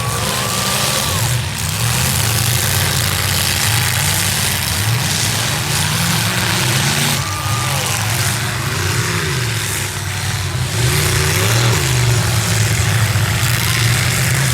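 Several V8 demolition derby car engines running and revving together, their pitch rising and falling over and over.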